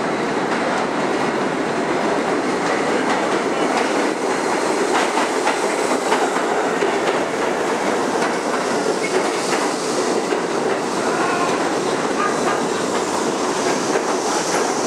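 Kawasaki R68A subway train pulling into an underground station, its cars rolling past close by with the wheels clicking over the rail joints.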